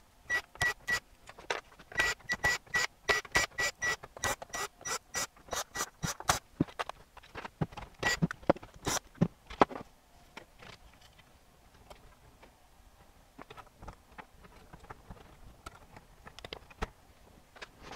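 Ratcheting hand screwdriver clicking in a quick, even rhythm of about four clicks a second as screws are backed out of the AV receiver's rear panel. About six seconds in the clicking stops, leaving quieter scraping and rubbing of a circuit board and cables being handled inside the metal chassis.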